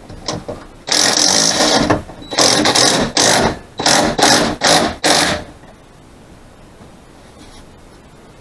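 Cordless drill driving a screw into the overhead header: one run of about a second, then several shorter bursts, stopping about five and a half seconds in.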